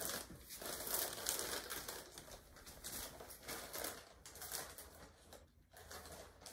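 Clear plastic packaging bag crinkling as it is gripped and pulled at to open it. The crackle is irregular and louder in the first few seconds, then fainter.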